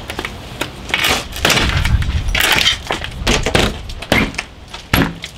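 Knocks, clicks and rubbing of a retrofit window frame being pushed and slapped into its wall opening by gloved hands, busiest and loudest in the middle, with a sharp knock near the end.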